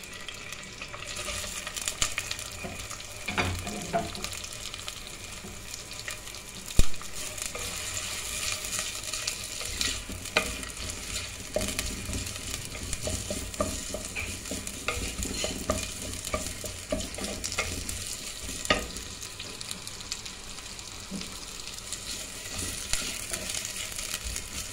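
Sliced onions sizzling in hot oil in an earthenware pot while a wooden spoon stirs them, with scattered clacks of the spoon against the pot and one sharp knock about seven seconds in. The onions are at the start of frying toward golden brown.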